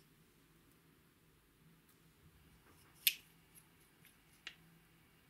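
One sharp plastic click about three seconds in, then a few faint ticks, from a cosmetic tube's cap being handled.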